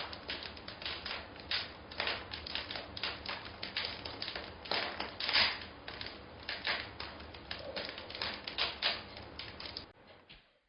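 A rapid, irregular run of sharp clicks and taps, several a second over a faint low hum, stopping shortly before the end.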